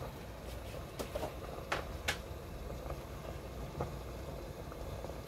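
Broth boiling hard in a stainless steel pot, bubbling steadily over a low hum, with a few sharp clicks between about one and two seconds in.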